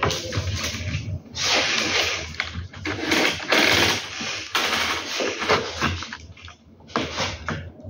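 Handling noise from blind-rail parts being worked on: several irregular bursts of rustling and scraping.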